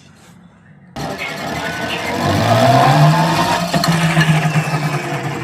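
Electric rickshaw's motor and wheel starting to run about a second in, a low hum rising in pitch as it spins up and then holding steady, with a rushing running noise over it; a test run of the wheel for the brake-shoe rubbing noise.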